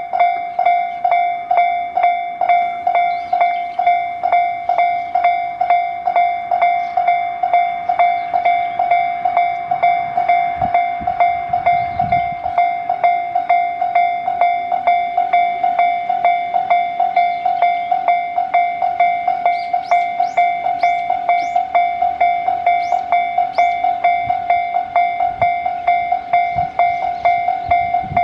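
Japanese railway level crossing warning bell ringing in an even, repeating ding about three times a second, a single high tone. A low rumble rises under it briefly about ten to twelve seconds in.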